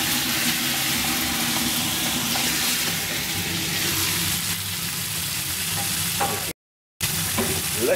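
Diced chicken breast sizzling steadily as it fries in a pan, broken by a brief gap near the end.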